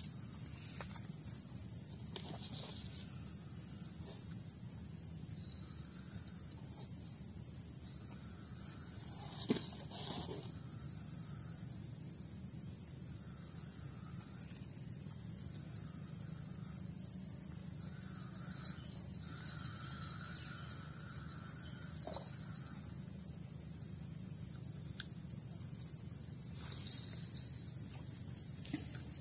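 Steady, high-pitched chorus of insects buzzing without a break in mangrove woodland, with a couple of faint knocks about ten seconds in.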